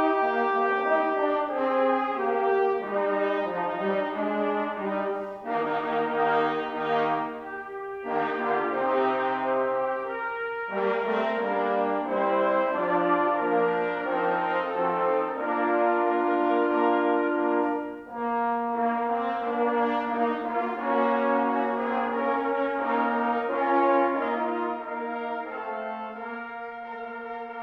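Brass instruments playing a slow piece in full held chords, the notes changing every second or so. The chords grow softer near the end.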